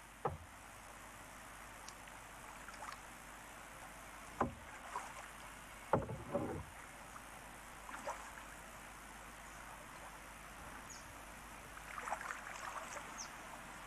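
Kayak being paddled: three sharp knocks, one right at the start, one about four and a half seconds in and one about six seconds in, as the paddle or hull bumps, with light paddle splashes and drips around two thirds of the way through and near the end. Steady hiss of VHS camcorder tape underneath.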